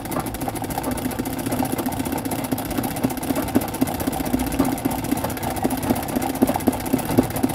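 Treadle-driven straight-stitch sewing machine running steadily, its needle stitching fast in an even clatter while doing freehand embroidery fill stitches.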